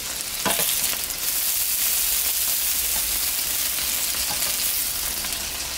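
Sausages and vegetable skewers sizzling on a hot electric table grill, a steady hiss.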